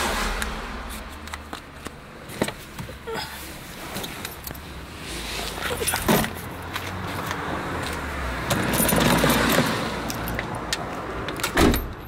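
A person handling things in and around a snow-covered car: a run of small clicks and knocks, then a rustling, scraping stretch that builds through the middle, and a sharp thump near the end.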